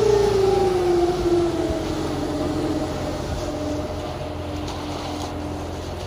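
Concrete mixer truck's diesel engine running at the pour, its revs falling over the first two seconds and then holding at a lower, steady speed.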